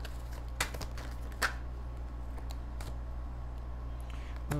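A deck of tarot cards being shuffled and handled by hand: scattered soft clicks and snaps of card edges, the sharpest a little after a second in. A steady low hum runs underneath.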